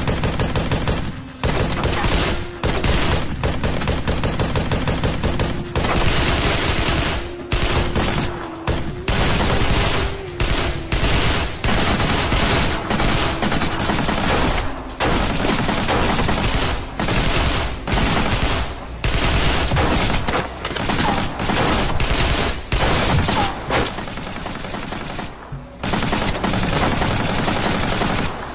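Gunfire in a shootout: rapid, nearly continuous automatic fire in long runs of shots, with a brief lull near the end.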